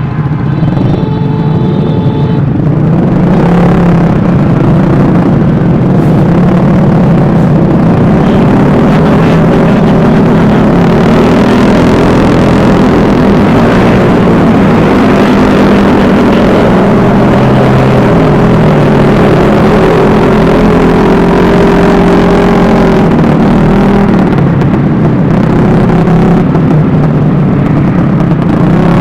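Vespa S 125 scooter's single-cylinder engine running under way, its pitch rising and falling with speed, over a steady rush of wind noise.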